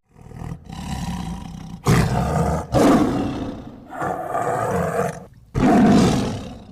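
Tiger roaring in a run of about five rough, separate calls, each lasting about a second.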